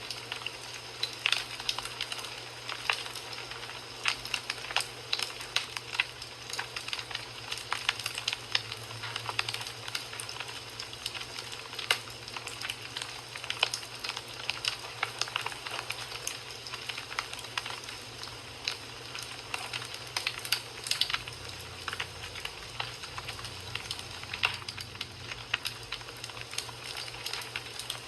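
Wood fire crackling in a fireplace: irregular sharp pops and snaps over a steady hiss of burning, with a faint low hum underneath.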